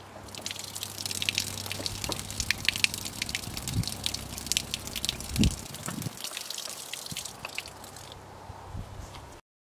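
Water pouring in a steady stream from a brass hose bibb on a 55-gallon plastic drum and splattering as it lands, starting just after the tap is opened and dying down near the end. There is one low thump about five seconds in.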